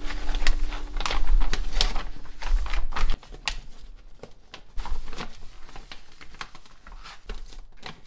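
Crinkling and rustling of a grow tent's silver reflective fabric lining as hands smooth and tuck it, with low bumps from handling. It is busiest in the first three seconds, with another flurry about five seconds in.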